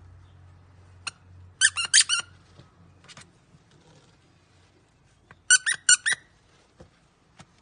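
Squeakers inside plush animal dog toys squeezed by hand, giving short, high, pitched squeaks in quick runs: about four together near two seconds in and four more around six seconds, with single squeaks between.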